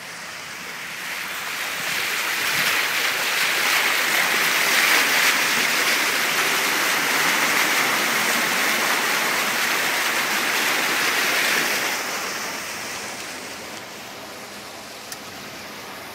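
Floodwater rushing and splashing around a car's tyres and body as it drives through a flooded street, heard through an open side window. The noise swells over the first few seconds and dies down after about twelve seconds.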